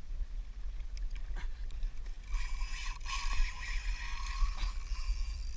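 Wind and water rumbling on an action camera's microphone at sea aboard a kayak, with a high-pitched whine that rises in about two seconds in and stops a little over four and a half seconds in.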